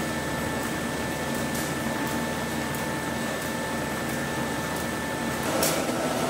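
Carton folder-gluer running, feeding and folding printed carton blanks: a steady mechanical whir with several high whining tones and faint ticking about twice a second. It swells briefly a little before the end, and one of the whines stops shortly before that.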